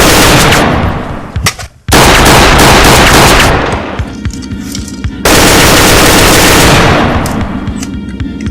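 Three long bursts of rapid gunfire, each trailing off in echo, over background music.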